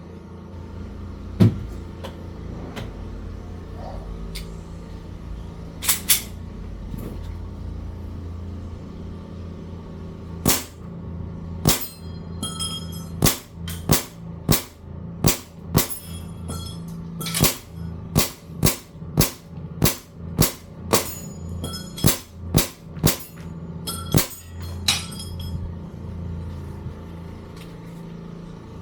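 Airsoft pistol shots, each a sharp crack: a single shot, a pair a few seconds later, then a long string of about two dozen shots at one to two a second that stops near the end. A steady low hum runs underneath.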